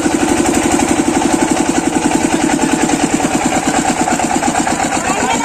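8 hp single-cylinder diesel engine of an irrigation water pump set running at idle, a steady rapid beat, while the pump is being primed with water.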